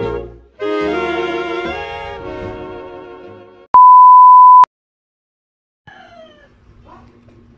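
Intro music that fades out, followed by a loud, steady test-tone beep of about one second that cuts off abruptly, then near silence.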